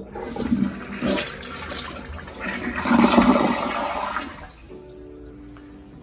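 A 20-inch-tall gravity toilet using 1.28 gallons per flush, flushing: water rushes through the bowl and down the trap, loudest about three seconds in, then dies away after about four and a half seconds as soft background music comes in.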